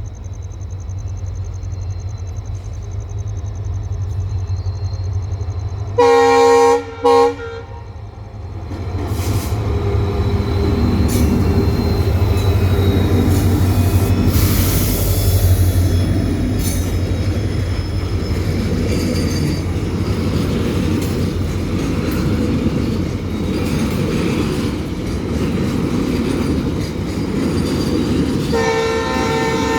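Twin EMD WDG4D diesel locomotives hauling a long container freight train. The engines rumble as they approach, and the air horn sounds a long blast and a short one about six seconds in. The rumble then swells into the clatter of the wagons rolling past, and the horn sounds again near the end.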